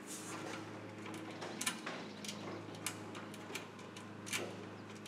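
Small metallic clicks and taps as washers and nuts are fitted by hand onto bolts inside a metal mailbox, about five sharp ticks spread over a few seconds, over a steady low hum.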